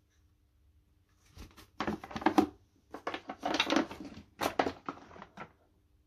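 A Numatic Henry vacuum's cloth filter and plastic parts being handled, rustling, scraping and knocking in three clusters of short bursts.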